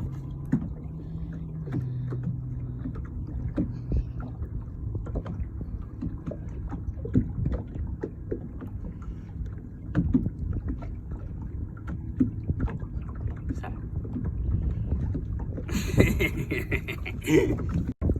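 Small aluminium boat sitting on the water, with waves lapping against the hull and scattered knocks on the metal. A louder rattling clatter comes about three-quarters of the way through.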